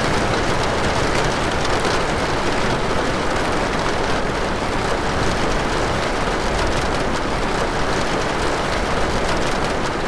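Steady rain from a recorded thunderstorm soundscape, an even, unbroken hiss.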